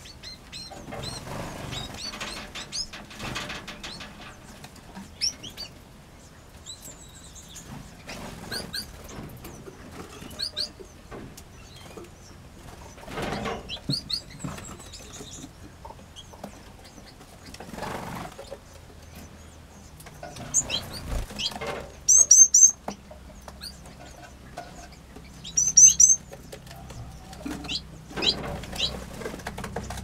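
Small aviary birds, finches and canaries, chirping with short high calls while wings flutter as they fly about. Two louder bursts of high, rapid chirping stand out about three quarters of the way through.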